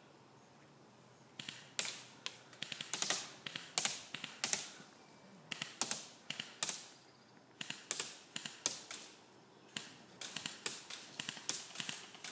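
Irregular sharp clicks and snaps, some single and some in quick clusters, starting about a second and a half in.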